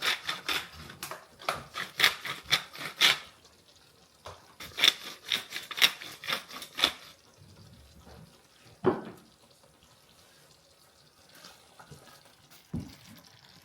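Kitchen utensils scraping and clinking against cookware in two runs of quick strokes, then a few separate knocks.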